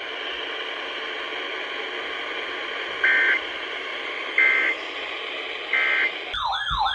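Weather radio hissing with static after a tornado-warning message ends, broken by three short buzzy data bursts about a second apart: the Emergency Alert System end-of-message tones. Near the end a rapidly wailing siren starts.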